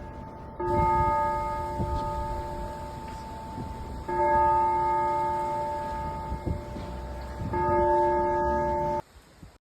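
A single church bell tolling: three slow strikes about three and a half seconds apart, each ringing on and slowly fading, after the dying ring of an earlier strike. The sound cuts off abruptly about nine seconds in.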